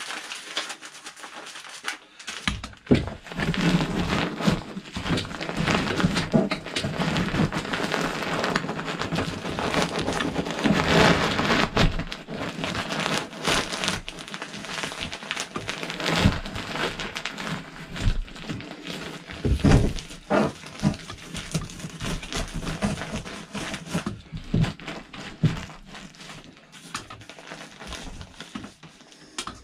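Kraft-paper-backed fiberglass insulation crinkling and rustling as it is rolled up and stuffed through a hole in a ceiling, with scattered knocks and thumps, busiest in the first two-thirds.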